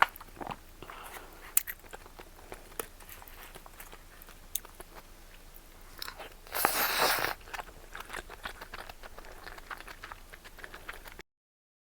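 A person chewing and biting food, with soft mouth clicks throughout and one louder, noisier burst of eating sound about six and a half seconds in. The sound cuts off abruptly shortly before the end.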